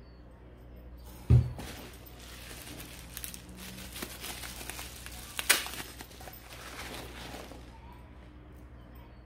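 Plastic bubble wrap crinkling and rustling as a bottle is unwrapped from it by hand, with a loud thump about a second in and a sharp crack about halfway through.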